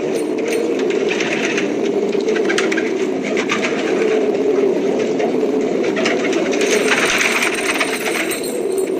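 A flock of pigeons cooing together in a steady, dense drone. Bursts of rattling clicks and rustling come and go over it, about two seconds in, again near three and a half, around seven seconds and near the end.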